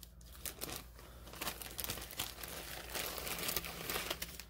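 Small plastic zip-lock bags of beads crinkling and rustling as they are handled, in irregular bursts that are busiest near the end.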